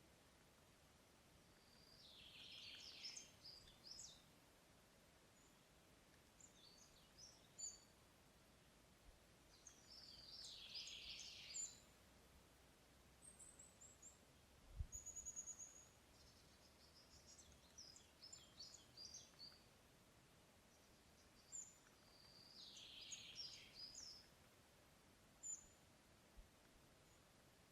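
Songbirds singing in a forest. One bird repeats the same short song three times, about ten seconds apart, each phrase falling in pitch toward its end, while other birds chirp and whistle higher in between. A single low thump comes about fifteen seconds in.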